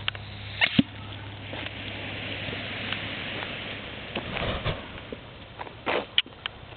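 Homemade ping-pong-ball smoke bomb burning, a hiss that builds over a few seconds, with sharp pops and knocks near the start and end and a louder burst of noise about four and a half seconds in.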